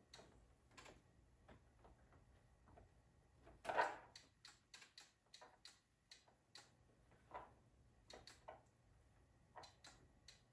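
Faint, scattered clicks and a couple of light knocks from the garden tractor's key and dash controls as the starting circuit is tried. No cranking is heard: the starter stays dead, which turns out to be a failed starter.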